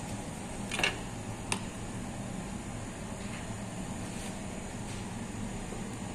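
Steady machine hum of bakery equipment, with two short sharp clinks about a second and a second and a half in.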